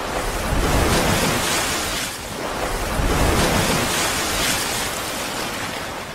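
Ocean surf: a steady rush of breaking waves that swells and eases about twice.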